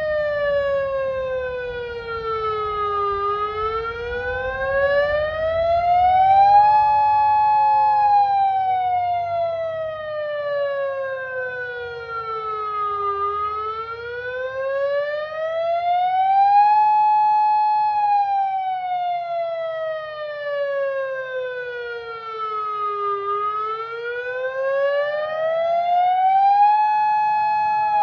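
Federal Signal RF100 outdoor warning siren sounding its test wail. The pitch slowly falls and rises again, holding briefly at the top of each rise, in a cycle of about ten seconds, with fainter delayed copies of the sweep trailing behind.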